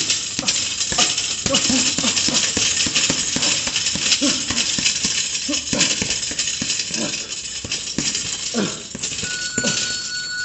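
Boxing gloves hitting a leather double-end bag in quick, irregular volleys: sharp slaps as the ball is struck and rebounds on its cords. A steady electronic beep sounds for about a second near the end.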